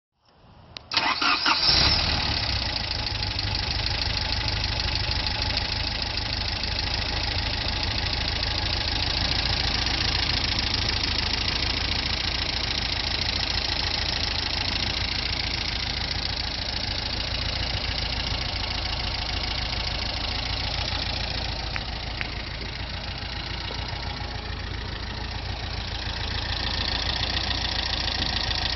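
1972 Volvo P1800ES's fuel-injected four-cylinder engine cranking briefly and catching about a second in, then idling steadily.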